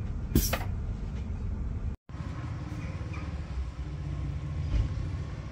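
Low rumble of a train standing at a station platform, with a sharp click about half a second in. The sound cuts out briefly about two seconds in, and a steady low vehicle hum follows.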